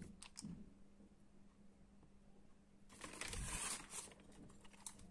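Faint handling of sugar-coated fried buñuelos on a plate, with a brief rustling crackle a little after three seconds in as the crisp dough is pressed and pulled open, over a faint steady hum.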